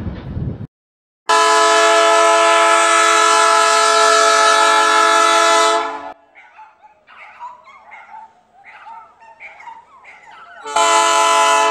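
Diesel freight locomotive's air horn, a GM G22UC, blowing a long steady chord for about four and a half seconds, then sounding again near the end: the warning for a level crossing as the train approaches. A brief rolling rumble of freight cars cuts off just before the first blast.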